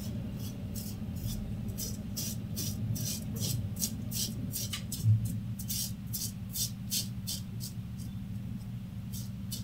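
Yuma double-edge safety razor with a Shark blade scraping through lathered stubble in short, quick strokes, about three a second, over a steady low hum.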